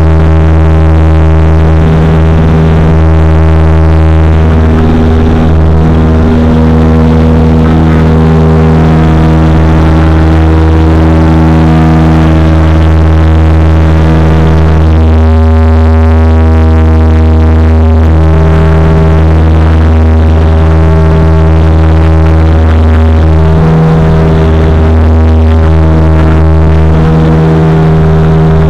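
Cabin drone of the MA60's twin turboprop engines and propellers in the climb after take-off. It is a loud, steady low hum with layered higher tones that shift in and out.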